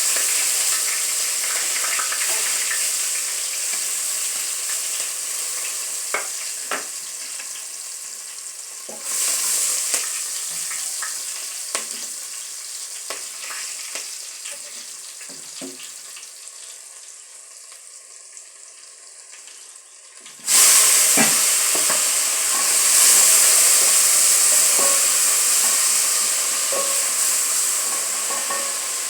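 Onions frying in hot cooking oil in a pan, a steady loud sizzle with occasional light knocks from stirring. The sizzle slowly dies down, then suddenly jumps loud again about two-thirds of the way through.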